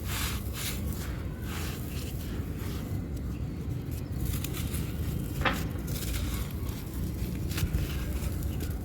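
A crumbly yellow block being crushed and crumbled, with dry crackling and crunching and a sharp crack about five and a half seconds in, over a steady low background rumble.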